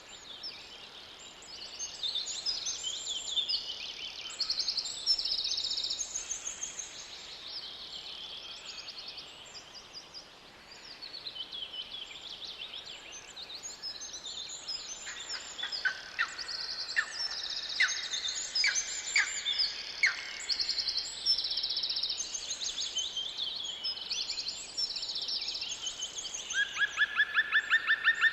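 Several birds singing together in a forest: overlapping chirps and short song phrases, with a fast, even trill starting near the end.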